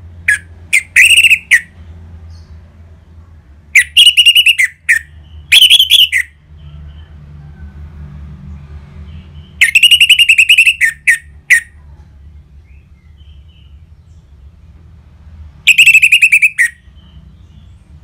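Orange-headed thrush (anis merah) singing: five loud, short phrases of rapid, rattling trilled song, spaced a few seconds apart.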